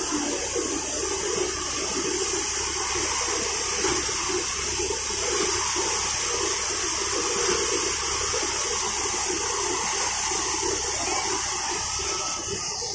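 Paddy thresher running steadily, its threshing drum and blower making a loud, even rushing noise as straw is blown out of the chute.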